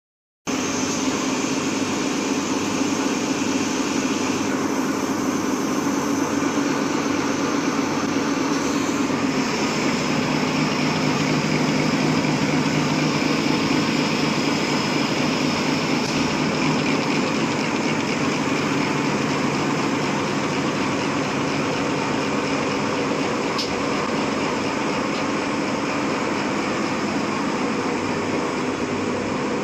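High-speed four-lane napkin paper making machine running: a steady, dense mechanical noise with a low hum underneath, starting abruptly about half a second in.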